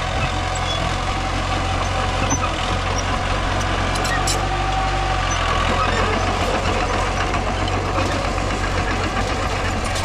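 Mini bulldozer's engine running steadily, an even low drone with no change in speed.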